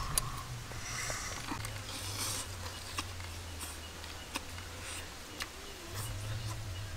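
People eating: chewing and lip smacking over a low steady hum, with scattered small sharp clicks.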